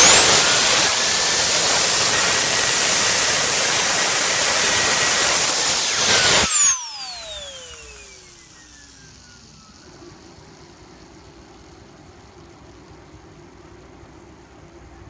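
Miniature turbocharger keychain spun by a jet of air: a loud hiss of air with a very high, steady whine from the spinning wheel. About six and a half seconds in, the air stops and the whine falls steadily in pitch as the wheel spins down, fading out over about three seconds.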